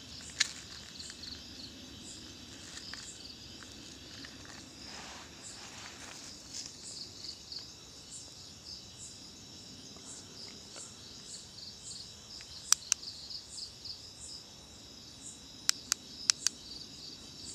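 Night insect chorus of crickets chirping steadily in a high, rhythmic pulse. A few sharp clicks come through it: one about half a second in, and a small cluster near the end.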